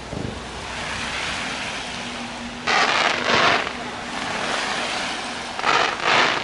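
Fireworks display: a dull boom at the start, then two pairs of short, loud hissing bursts, the first pair about three seconds in and the second near the end.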